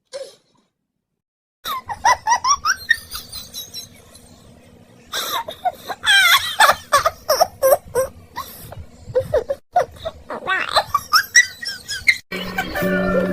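High-pitched laughter in repeated rapid bursts, with a pause in the middle. Music with steady held notes starts near the end.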